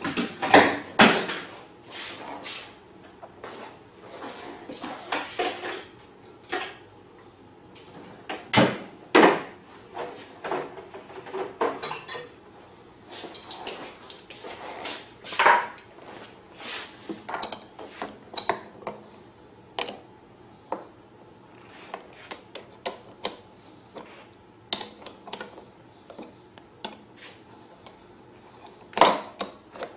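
Irregular metallic clinks and knocks of wrenches and small brass fuel fittings being handled and turned, as a brass hose barb and fuel fitting are tightened together on the generator's fuel tank.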